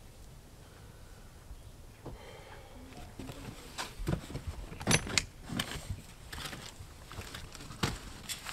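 Irregular clicks and knocks, as of objects being handled, starting about two seconds in, the sharpest about five seconds in.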